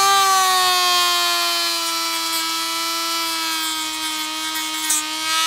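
Dremel rotary tool with a sanding drum running at high speed, a steady whine that sags slightly in pitch as it grinds down the plastic lip left from a cut-off mounting tab on the back of a car badge.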